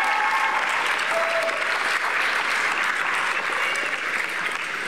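Audience applauding in a gymnasium, a dense steady clapping that begins to fade near the end.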